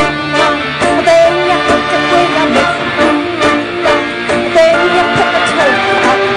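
Live band playing an instrumental break of a Burmese pop song: a melody line over a steady drum beat, with no vocal.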